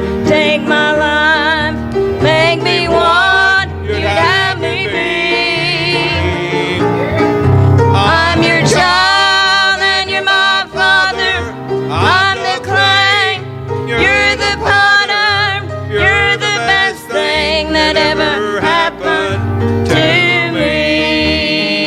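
A country gospel song: singing over acoustic accompaniment in a bluegrass style.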